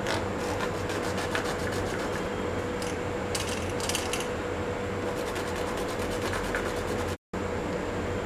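Dried herbal ingredient rubbed rapidly back and forth on a wet grinding stone, a steady gritty scraping, grinding it down into a paste for a traditional baby remedy. The scraping cuts out for an instant near the end, with a steady hum underneath.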